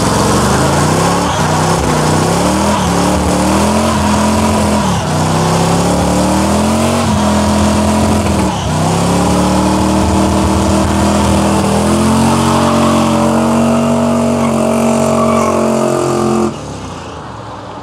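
V8 muscle car engine revving hard under load, its pitch climbing, dipping sharply twice and climbing again to hold high. The sound cuts off suddenly about a second before the end, leaving quieter engine noise.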